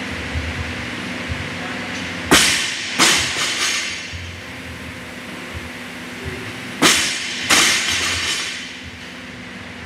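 A 55 kg barbell with bumper plates is dropped twice onto the rubber gym floor. Each drop gives two thuds about two-thirds of a second apart, the second trailing off in a rattle of plates and bar, over a steady fan hum.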